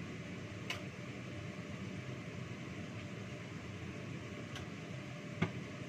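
Tempe frying in oil in a pan on a gas stove, a steady sizzle, with three light clicks of a utensil against the pan, the sharpest near the end.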